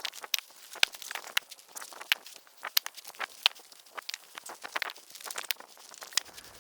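Rapid, irregular clatter of sharp knocks and clicks from wood being handled, in sped-up audio.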